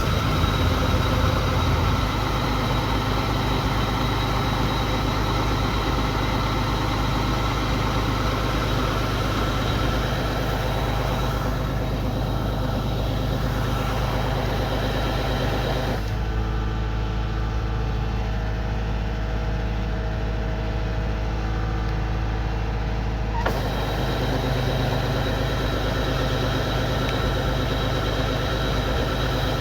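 Kubota combine harvester running steadily: a constant engine drone with machinery noise on top. The sound changes abruptly about sixteen seconds in and again about seven seconds later.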